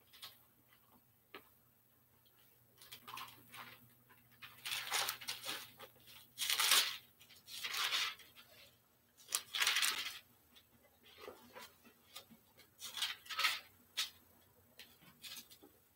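Pages of a Bible being turned and handled, a series of short papery rustles and swishes. The loudest come in the middle, with quiet gaps between them.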